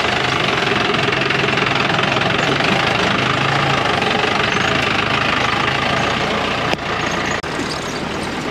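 An old jeep's engine running as it drives over a rough off-road track, loud and steady, dropping slightly about seven seconds in.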